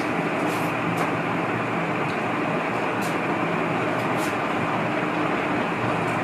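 Steady background hum and hiss, even and unchanging, with a few faint, brief high-pitched scratches.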